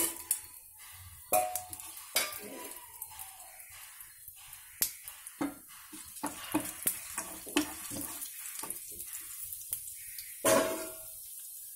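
Tempering spices (mustard seeds, cumin, chana and urad dal, dried red chillies) sizzling in hot oil in a frying pan: a steady hiss with many scattered sharp pops as the seeds begin to splutter, a sign that the oil is hot enough. There is one louder burst of crackling near the end.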